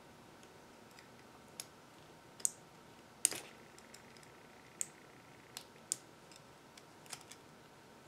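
Scattered small metallic clicks and taps of a lock pick and tension wrench working in the cylinder of an American Lock 5530 padlock, about eight in all at uneven intervals, the loudest a little past three seconds in.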